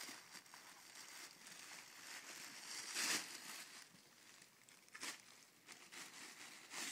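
Tissue paper crinkling and rustling as a dog paws and noses at a ball toy lying on it, in uneven bursts, the loudest about three seconds in.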